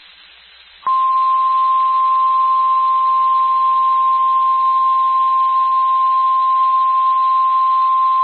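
Emergency Alert System attention tone: one steady high tone that starts abruptly about a second in and holds, over faint hiss. It signals an emergency warning broadcast, here a National Weather Service flash flood warning.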